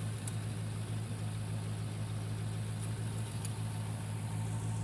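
Cadillac CTS-V's V8 engine idling steadily, warmed up to operating temperature.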